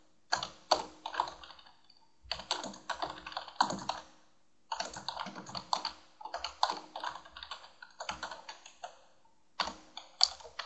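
Typing on a computer keyboard: rapid key clicks in about four runs, with brief pauses between them.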